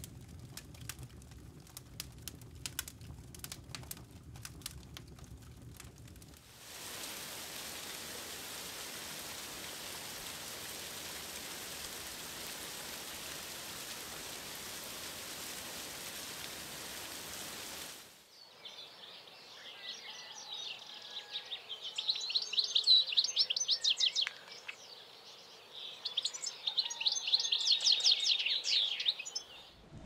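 Burning wood embers crackling with sharp pops, then about six seconds in a steady rush of flowing water, which gives way after about eighteen seconds to birds singing in rapid high trills.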